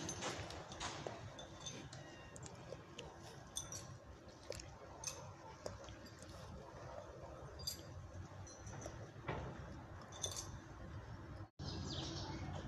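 Scattered small crackles and clicks of dry fallen leaves being stepped on and disturbed, over a low steady outdoor rumble, with a brief dropout near the end.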